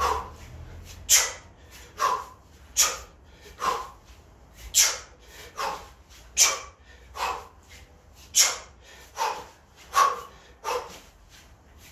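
Sharp, forceful breaths blown out by a man working through heavy alternating kettlebell swings and cleans, about one every second in time with the hip drive.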